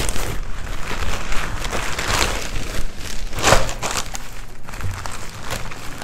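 Thin clear plastic produce bag rustling and crinkling as it is handled and opened, with louder crackles about two and three and a half seconds in.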